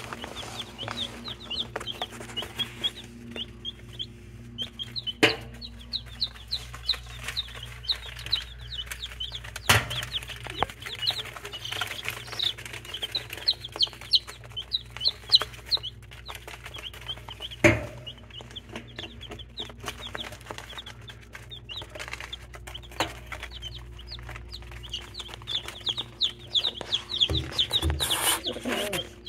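Two-day-old Speckled Sussex and Americauna chicks peeping, a constant run of short, high cheeps overlapping one another, with a few sharp knocks now and then.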